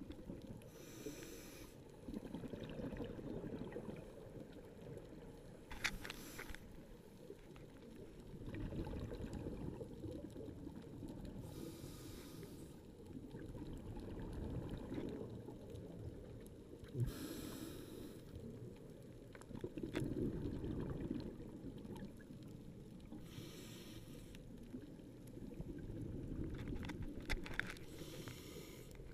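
Scuba regulator breathing underwater: a bubbly exhale about every five to six seconds over a steady low rumble.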